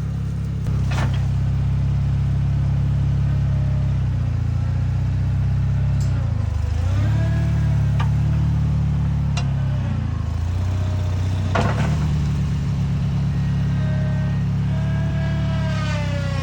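Small backhoe's engine running steadily, its speed dipping and picking back up a couple of times as it works the forks, with a whine that glides up and down and a few sharp clanks.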